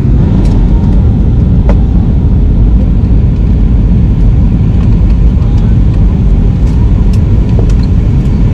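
Loud, steady low rumble of airliner cabin noise, jet engines and rushing air, heard from a window seat of an Airbus A320-family jet during its descent to land. A few faint clicks sound over it.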